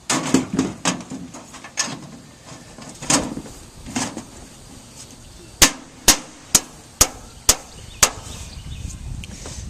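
Hammer driving nails into metal chimney flashing. There is an irregular run of knocks in the first few seconds, then six sharp, evenly spaced blows about half a second apart.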